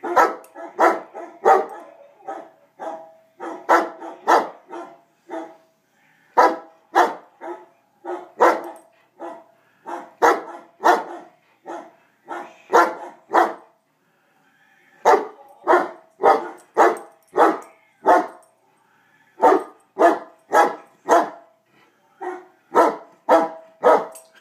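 Dog barking repeatedly in runs of three to six barks, about two a second, with brief pauses between runs.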